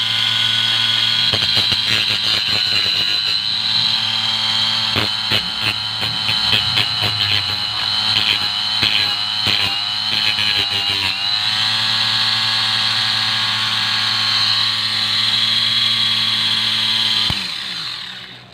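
Homemade battery-powered mini grinder, a small electric motor spinning an abrasive cutting disc, running loud with a steady high whine while the steel tip of a compass is ground against the disc in a run of short scrapes. The grinding stops about eleven seconds in, and near the end the motor is switched off and winds down.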